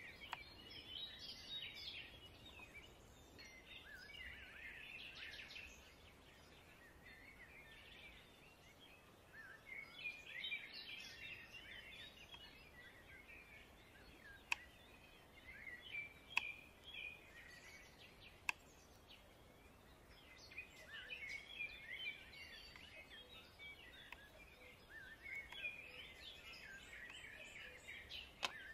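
Small birds chirping in scattered bursts, faint. A few single sharp taps of a knife on a wooden cutting board come in between.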